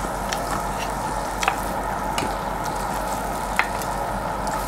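Pork belly sizzling on a WMF grill plate: a steady frying hiss with occasional sharp pops.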